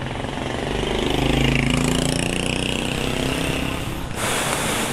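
Motor vehicle engine running, swelling louder over the first second and a half and then easing, with a short burst of hiss near the end.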